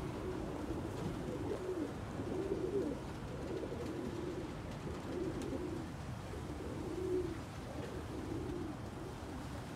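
Domestic pigeons cooing: a steady string of low coos, roughly one a second.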